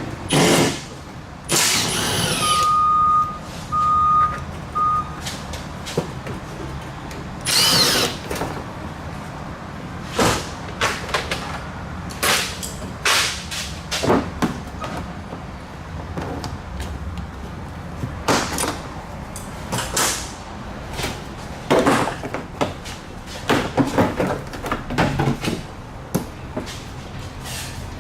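A power tool running in repeated short bursts, most under a second long, backing out fasteners as the exhaust heat shield is taken off. Three short beeps come about three seconds in.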